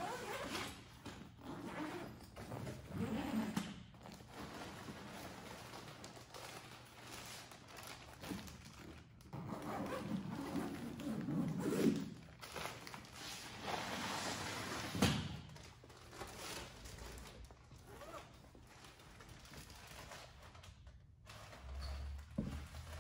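Zipper on a rolling backpack being opened, followed by handling noises and rustling of a clear plastic bag as it is pulled out, with a few knocks along the way.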